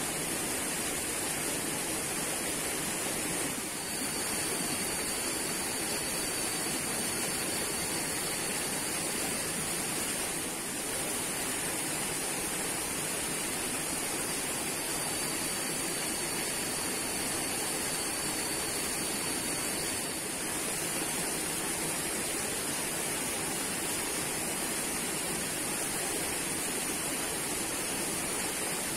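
Steady rushing hiss of a streamside outdoor ambience, with a thin high whine that sounds for several seconds twice.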